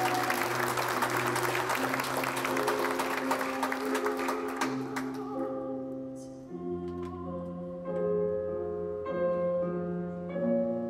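Audience applauding over instrumental music with long held notes. The applause dies away about halfway through, leaving the music alone.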